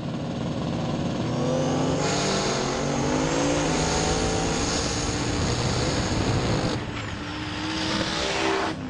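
Drag-race car's engine running and revving hard, with a loud rush of noise and rising pitch from about two seconds in that drops away near seven seconds.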